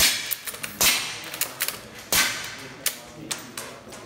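CO2 lever-action rifle firing three shots about a second apart, each a sharp crack with a hissing tail of released gas, with lighter clicks between and after the shots.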